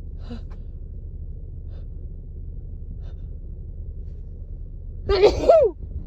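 A woman with a head cold sneezing once, loudly and briefly, about five seconds in, the sneeze ending in a voiced, falling cry. Before it there is only a faint breath over a steady low room hum.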